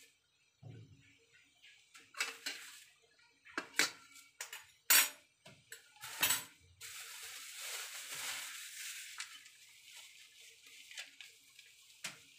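Several sharp clicks and knocks of a frying pan on a stovetop grate, then a hiss lasting a few seconds that fades away.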